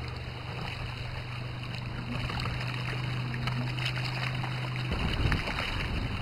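Steady noise of lake water lapping, with a low steady hum underneath that cuts off abruptly about five seconds in.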